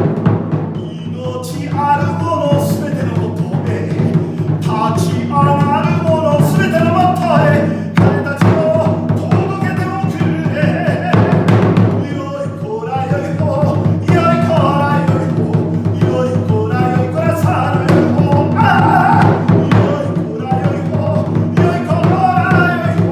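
Music: Japanese folk-style drumming with a singing voice over a steady sustained low tone, drum strokes landing at irregular points.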